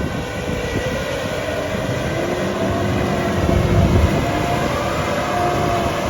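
Combine harvester running, a steady mechanical drone with a rough low rumble and a faint steady whine over it.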